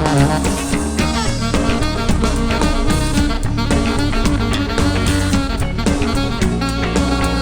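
Band music with a drum kit keeping a steady beat under pitched instruments, continuous and loud.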